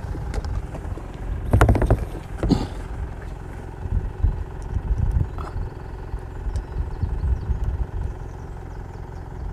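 Wind buffeting a roof-mounted microphone as an irregular low rumble. About one and a half seconds in there is a short louder burst, and another comes about a second later, as the antenna whip is handled in its mount.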